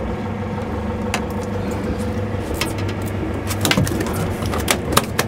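Fishing boat's engine running steadily with a low hum. A few sharp clicks and knocks come about a second in and again several times near the end.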